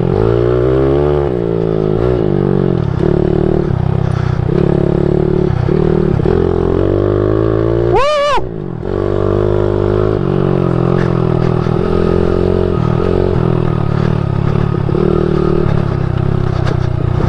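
Small single-cylinder pit bike engine with a pumper carburettor, ridden hard round a dirt track, its pitch rising and falling as the throttle is opened and shut. About eight seconds in, the engine note drops out for a moment under a short high tone that rises and falls.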